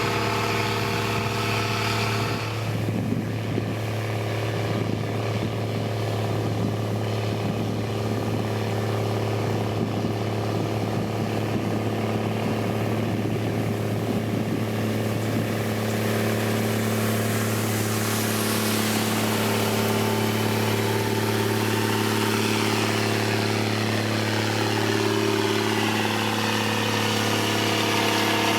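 Heavy road-construction machine's engine running steadily throughout; from about halfway its note shifts in pitch.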